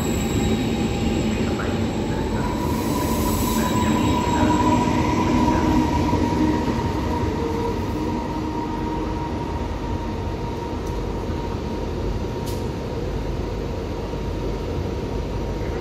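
Electric passenger train running along a station platform: a steady rumble of wheels on track, joined about two and a half seconds in by a steady high whine that holds.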